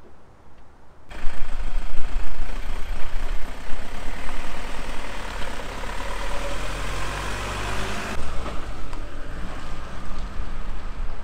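A truck-based motorhome's engine starts about a second in and runs with a deep rumble. It rises in pitch as the motorhome pulls away.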